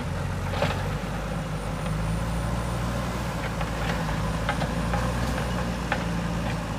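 Heavy diesel construction machinery running steadily at working revs, with a few short sharp knocks and clanks scattered through.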